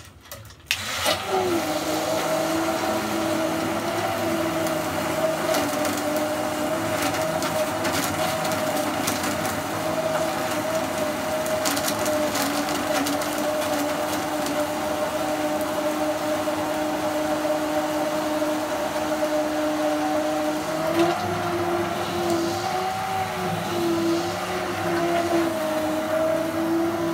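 Hand-held immersion blender switching on about a second in and running steadily in a steel pot of milkshake with ice, its motor whining with scattered clicks. The motor's pitch wavers in the last several seconds as the load changes.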